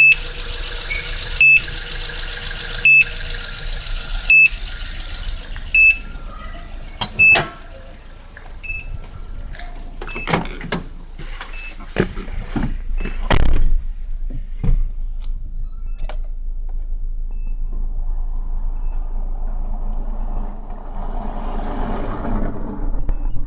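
Suzuki Splash's electronic warning beeper, sounding the strange beep that appeared after its battery went dead: a short high beep repeating about every second and a half, which stops about seven seconds in. Then a run of clicks and knocks, and a steady low hum.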